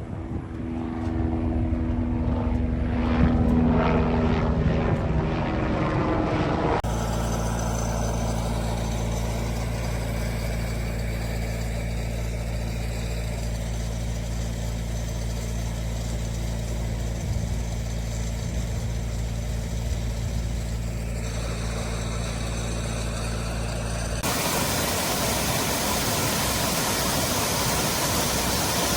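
An engine or motor rising in pitch, then running at a steady drone with several low tones. Near the end it cuts abruptly to a steady rushing noise.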